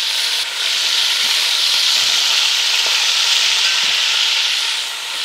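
Chunks of beef sizzling as they sear in hot avocado oil in a cast iron Dutch oven, a steady dense sizzle that grows louder about half a second in and eases slightly near the end. The meat is being browned to a deep brown crust.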